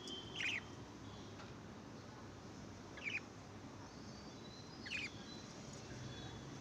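Baby budgerigar chicks giving three short squeaky chirps about two seconds apart, each one dropping in pitch, over a low steady hiss.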